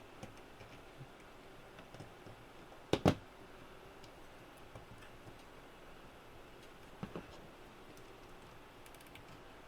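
Small tool working the mounting nut of a rotary encoder on a radio's circuit board: faint scattered metal ticks, a sharp double click about three seconds in, and another click a little after seven seconds.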